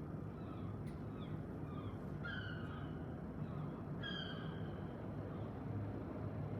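Steady low rumble of street traffic, with birds chirping over it and two louder calls about two and four seconds in.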